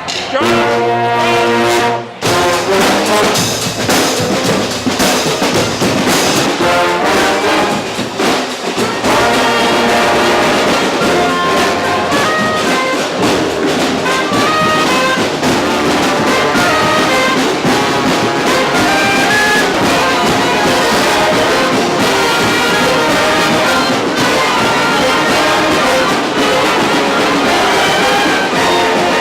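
A large street brass band plays a funk tune together: tubas and trombones on the bass line, trumpets and other horns above, with drums. A held chord breaks off about two seconds in, and after a short dip around nine seconds the full band plays on.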